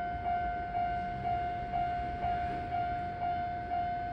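Railway level-crossing warning bell ringing, an electronic ding repeating about twice a second, the signal that a train is approaching the crossing.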